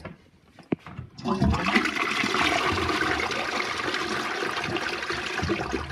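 TECE concealed cistern flushing a toilet with its newly fitted flush valve. A single click comes about three quarters of a second in, then water rushes into the bowl from just over a second in and keeps up steadily.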